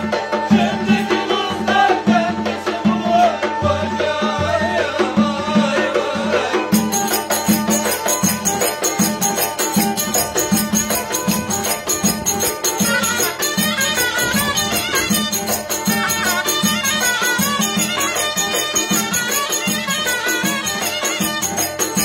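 Live Turkish folk dance music: a zurna and a kemane play the melody over a steady beat on a davul bass drum.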